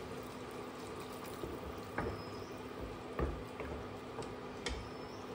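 Coconut milk pouring from a small steel pot into a wok of simmering diced vegetables, with a few light metal clinks.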